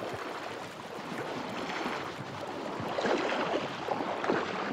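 River water rushing and splashing, with irregular splashes that get louder about three seconds in.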